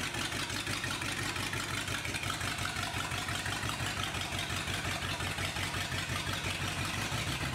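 Ford FE big-block V8 of a 1973 Ford F350 idling steadily through open headers with no exhaust behind them, as the truck creeps forward in low gear.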